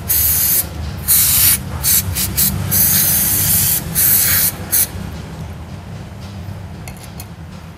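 Aerosol carburetor cleaner sprayed through a straw into a throttle body bore to clean it, in a rapid series of short hissing bursts that stop about five seconds in.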